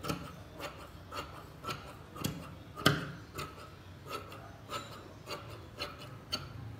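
Large tailor's shears cutting along a sheet of sheer fabric laid on a table, the blades snipping shut in a steady rhythm of about two cuts a second, one cut louder about three seconds in.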